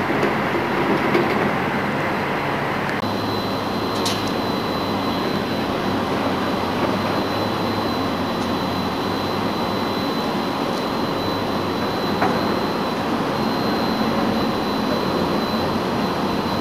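Steady rushing machinery noise from the helicopter destroyer Hyuga close by, a gas-turbine warship, with a low hum under it. The sound changes abruptly about three seconds in, and a thin steady high whine comes in.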